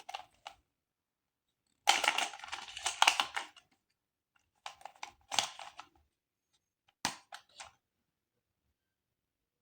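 Hands handling plastic toy pieces and packaging. Short clicks and taps, a longer rustle lasting about a second and a half from about two seconds in, then more clicks around the middle and a few light taps later on, with dead silence between them.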